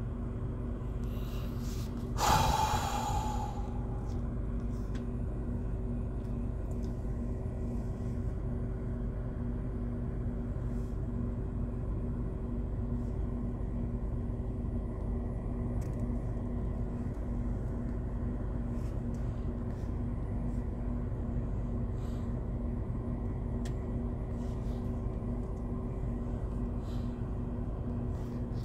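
Steady low hum inside a car cabin, with a loud breath about two seconds in and faint scattered clicks.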